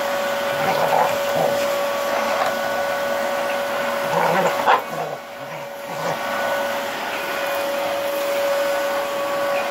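Vacuum cleaner running with a steady whine that dips briefly about five seconds in, while a dog barks and whines at it a few times.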